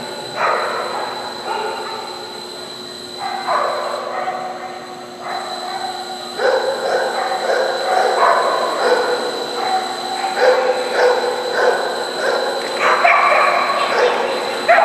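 Dog barking repeatedly in an indoor arena, a few barks at first and then barking almost continuously from about six seconds in.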